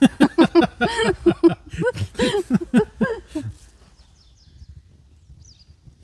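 A rapid run of short vocal sounds, about five a second, with falling pitch, for the first three and a half seconds. Then a quiet outdoor background with a few faint bird chirps.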